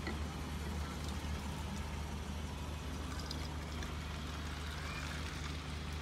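Water poured from one plastic bottle into another, filling a homemade bottle waterer, over a steady low hum.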